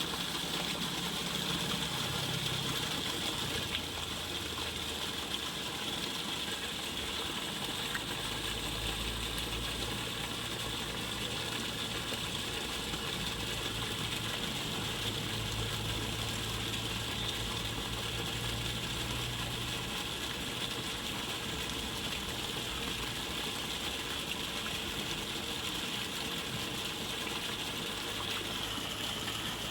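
Steady tinnitus-masking noise: an even hiss, brightest in a band high in pitch, with a faint low hum underneath that changes pitch every several seconds.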